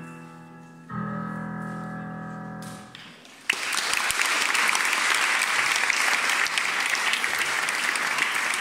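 Piano striking a final chord that rings out and fades, then, about three and a half seconds in, an audience suddenly starts applauding and keeps clapping steadily.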